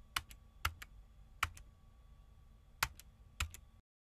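Computer keyboard keystrokes: a few slow, separate key presses, each a pair of quick clicks, over a faint hum. The sound cuts off suddenly near the end.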